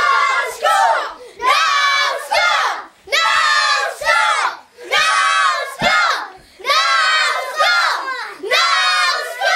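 A group of children shouting and cheering together in a rhythmic chant, one loud high-pitched shout about every second with short breaks between.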